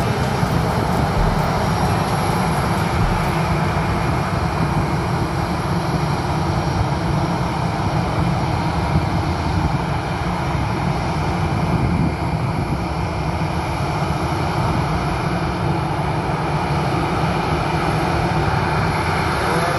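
Jet engines of an Airbus A320 at taxi power, a steady rumble and hiss.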